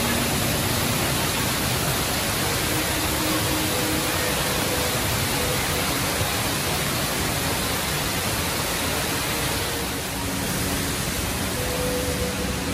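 Steady rushing roar of the Rain Vortex, a large indoor waterfall pouring down into its pool. Faint short tones sound now and then beneath it.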